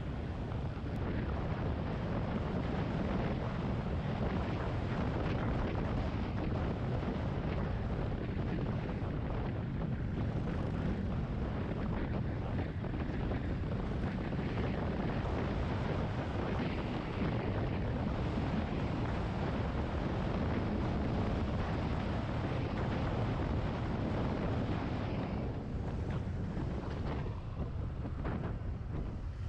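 Steady wind rumble on the microphone of a Yamaha XT250 Serow motorcycle riding at road speed, mixed with the bike's running noise; the rush eases briefly near the end.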